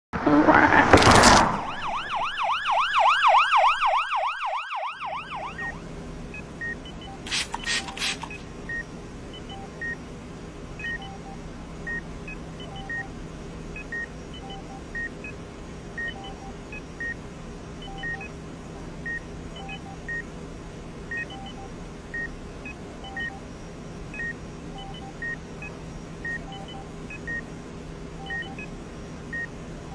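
A loud burst, then a warbling siren-like electronic tone for about three seconds, then a steady run of short electronic beeps, about one a second at shifting pitches, over a low steady hum.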